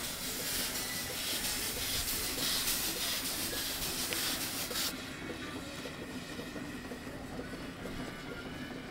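Miniature steam wagon hissing loudly as it vents steam while moving off; the hiss cuts off suddenly about five seconds in, leaving a fainter steady running sound with light regular ticks.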